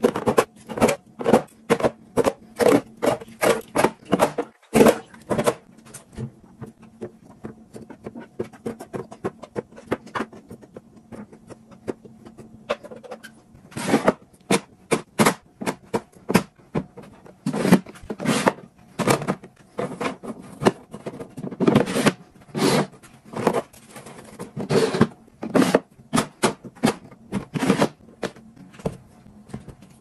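Hands packing food into clear plastic refrigerator storage bins: a long run of sharp clicks, taps and knocks as soda cans and then vegetables are set against hard plastic. The handling goes quieter for several seconds in the middle, then picks up again.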